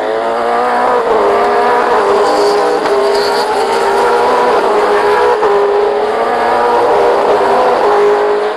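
V8 Supercar's 5.0-litre V8 engine running hard at racing speed, its pitch climbing and dropping back again and again as it works through the gears.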